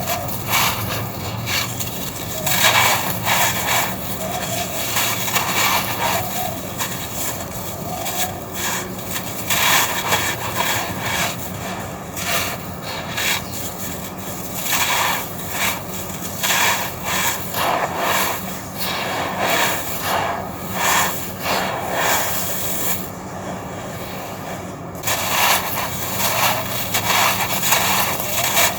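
Red sand-cement cylinders crunching and crumbling, with gritty scraping and crackling that comes in irregular bursts, some louder than others.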